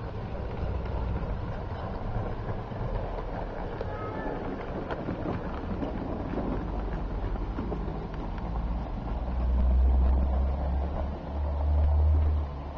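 O gauge electric model train, a tank locomotive with coaches, rumbling and clattering steadily along garden track as it passes close by. Wind buffets the microphone twice near the end, louder than the train.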